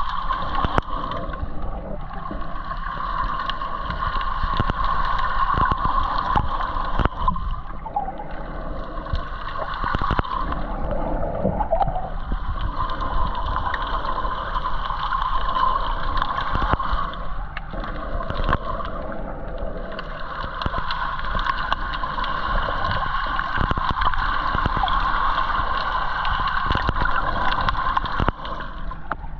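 Underwater water noise: a steady muffled rush with gurgling and scattered short clicks.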